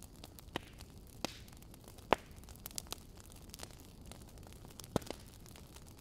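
Wood fire crackling in a fireplace: scattered sharp pops from the burning logs, the loudest about two seconds in and a quick pair near the end, over a low steady hiss.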